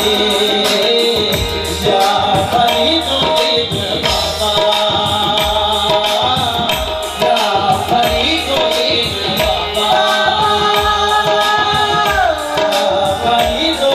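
Qawwali music: tabla drumming in a steady rhythm under a held, ornamented vocal line.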